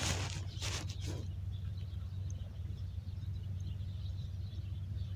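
Outdoor ambience: a steady low rumble with scattered faint, high bird chirps. There are a few short rustles in the first second.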